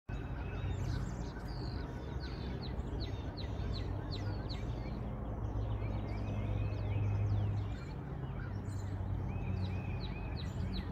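Small songbirds chirping: many quick falling chirps, overlapping throughout, over a steady low hum.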